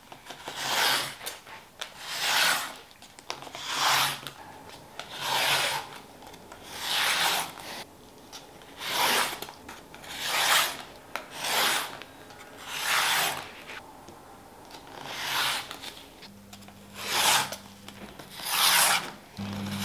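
Rotary cutter rolling through folded layers of fabric on a cutting mat: a dry rasping stroke about every one and a half to two seconds, around a dozen cuts in all.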